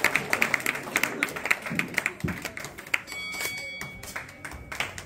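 Audience clapping, a dense patter of hand claps that thins out about three seconds in and picks up again near the end. A brief steady high tone sounds in the lull.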